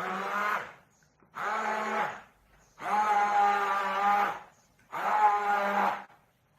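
Electric countertop blender run in short pulses, four bursts of about a second each with brief stops between, chopping and mixing carrots, fruit and sugar into juice.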